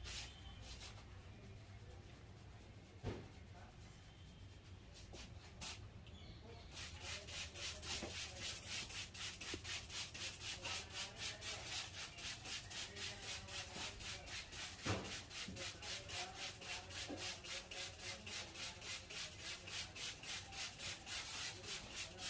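Hands rubbing briskly over a person's hair and scalp in a barber's head massage. The rubbing is soft at first, then about six seconds in it turns into a fast, even run of swishing strokes, about three a second, with one sharper click partway through.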